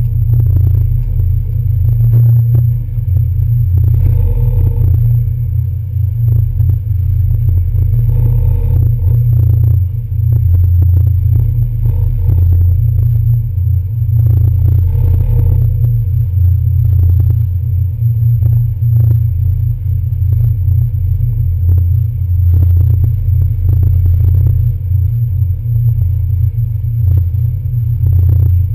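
A ferry's diesel engines running with a steady low rumble, with occasional knocks and clatter over it.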